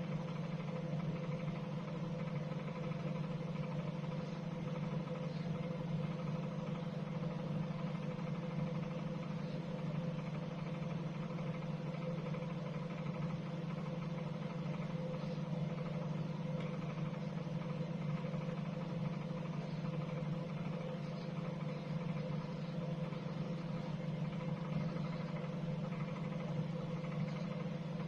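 Microwave oven running, a steady even hum while it heats frozen crispbakes.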